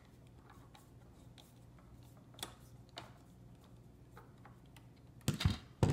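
Faint scattered clicks and ticks of a screwdriver working a wall receptacle's terminal screw as the black hot wire is taken off. A louder clatter of knocks comes near the end as the old receptacle is handled.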